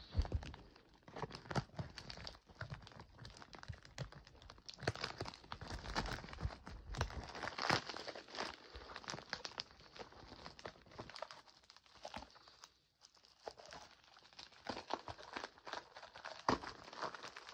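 Packaging crinkling and rustling as it is unwrapped and handled, with irregular knocks and a short lull about thirteen seconds in.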